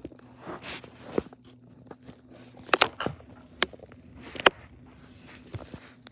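Paper handling noise: rustling and scraping with several sharp clicks, the loudest near three seconds in and about four and a half seconds in.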